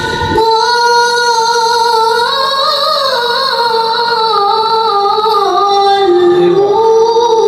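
A young child's voice chanting one long, ornamented melodic phrase in maqam jiharkah, the pitch wavering up and down in small turns. The phrase begins just after the start and is held without a break.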